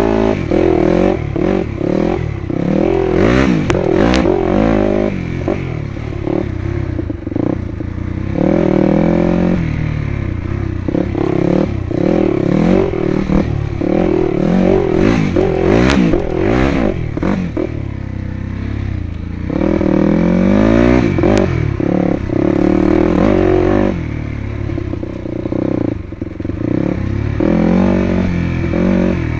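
Dirt bike engine revving up and down through the gears on a rough single-track trail, with clattering knocks from the bike over the rough ground.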